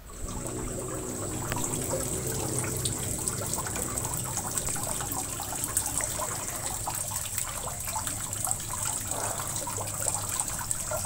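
Kitchen knife cutting raw beef liver into cubes on a wooden cutting board: many small, light taps and cuts of the blade, over a steady background hiss.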